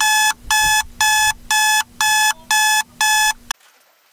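Digital alarm clock beeping, a steady run of short, high-pitched beeps about two a second that cuts off suddenly about three and a half seconds in.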